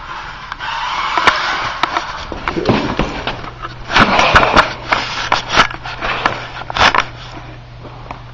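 Xmod RC car with a stage 2 motor whirring and its small tyres skidding and rolling on a concrete floor while drifting, mixed with scattered sharp clicks and knocks. The whir comes in surges, strongest about a second in and again around four seconds, then dies down.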